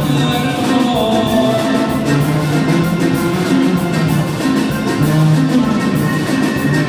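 Instrumental passage of a Mexican regional corrido: melody instruments over a steady beat, with no singing.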